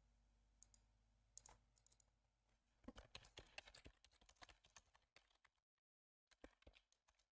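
Faint typing on a computer keyboard: a quick run of key clicks from about three to five seconds in, with a few scattered clicks before and after.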